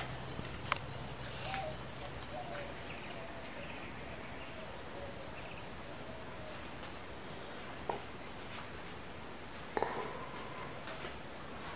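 An insect chirping: a steady run of short, high-pitched chirps, about four a second, broken by a few brief pauses, with a few soft clicks and knocks.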